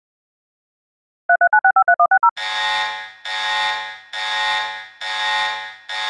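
Emergency-alert attention signal: about a second in, a rapid string of about nine short two-note beeps like touch-tone dialling, then long harsh buzzing blasts, about one a second.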